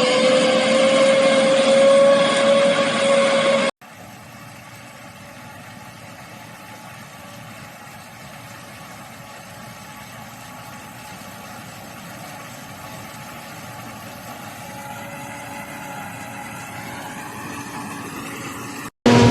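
Corn picker combine harvester running, its engine loud with a steady tone for the first few seconds. After a sudden cut the machine is heard much fainter as a steady drone that slowly grows louder.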